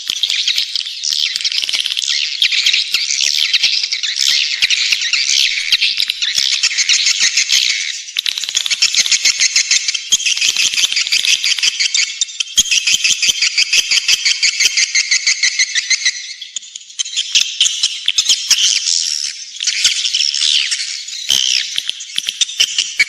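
Swiftlet lure call: a dense, high-pitched twittering of edible-nest swiftlets, made of rapid rattling trills and chirps that run on almost without a break, dipping briefly about two-thirds of the way through. It is the recorded call played from swiftlet houses to draw the birds in to roost and nest.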